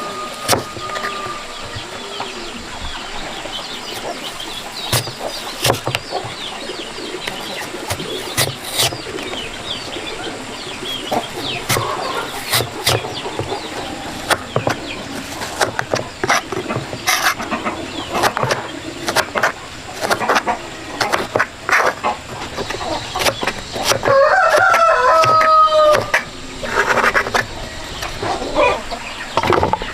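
Chickens clucking among scattered sharp knocks, with a rooster crowing once in a long call near the end.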